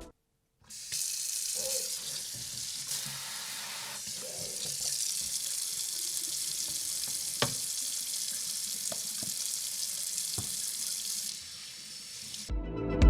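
Water running from a tap: a steady hiss with a few faint clicks or drips, starting just under a second in and stopping about eleven seconds in.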